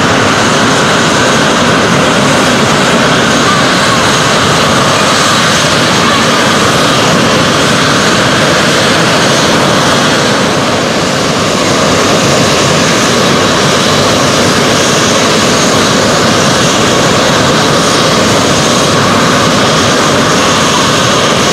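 SEPECAT Jaguar jets' Adour turbofan engines running on the ground: a loud, steady jet roar with a high whine, dipping briefly about eleven seconds in.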